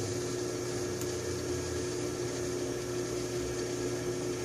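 Small bench drill press motor running with a steady hum, holding one pitch throughout.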